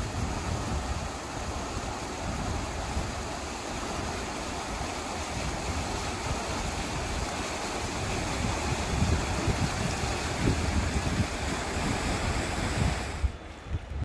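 Steady rushing of a river's flowing water, with wind gusting on the microphone as an irregular low buffeting. The sound drops away just before the end.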